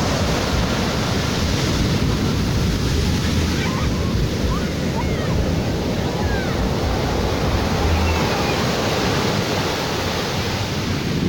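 Sea surf washing steadily onto the shore, with wind rumbling on the microphone. A few faint short chirps sound in the middle.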